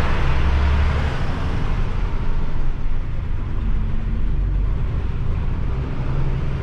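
Isuzu Giga concrete mixer truck's 14,250 cc diesel engine running steadily while the truck is driving, heard from inside the cab.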